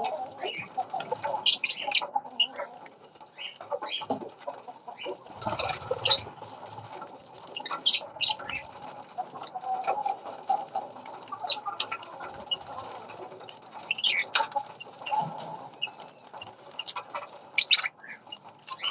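Small aviary birds chirping: many short, high chirps and squeaks scattered throughout, over a steady background of light rustling.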